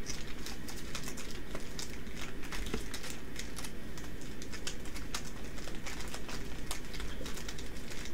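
Sealed foil Yu-Gi-Oh Lightning Overdrive booster packs crinkling and rustling against one another as a stack of them is shuffled by hand, a dense run of quick, irregular crackles.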